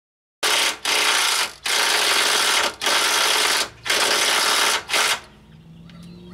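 Handheld power tool running in about six short bursts with brief pauses, stopping about five seconds in.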